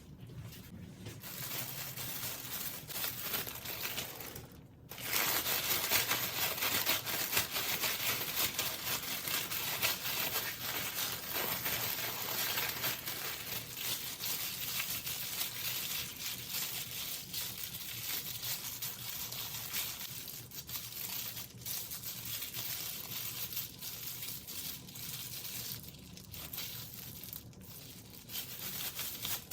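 Chicken wing middles sizzling and crackling in a stove's fish-grill broiler, a dense steady crackle of fat and oil spitting that gets louder about five seconds in.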